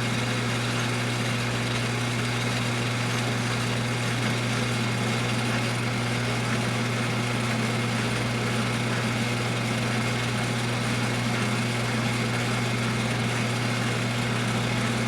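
Atlas metal lathe running steadily under power, its motor and gear train giving a constant hum while the lead screw feeds the carriage on a 32-threads-per-inch threading setup.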